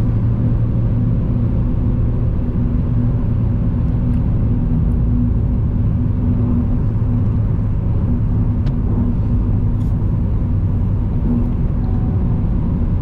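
Steady engine drone and tyre and road rumble heard from inside a moving car's cabin.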